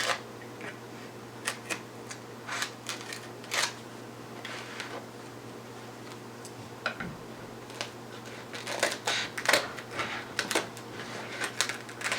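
Scattered light clicks and taps of hand tools, a straight edge and a blade, being handled against a skateboard deck and its grip tape. They are sparse through the middle and come thicker near the end, over a faint steady hum.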